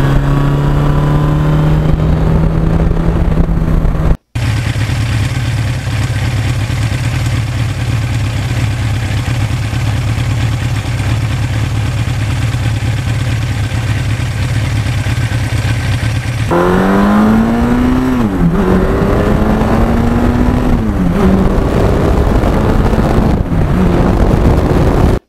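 1982 Suzuki GS1100E's air-cooled inline-four engine under way, its pitch rising as it pulls for the first few seconds. After a brief cut it holds a steady, unchanging note, then from about two-thirds in it climbs and drops several times as it goes up through the gears.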